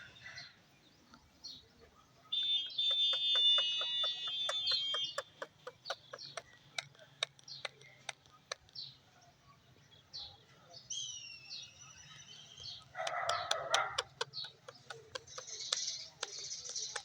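Parrot calling: a loud drawn-out squawk, then a run of sharp clicks about three a second, followed by gliding whistled calls and rougher squawks.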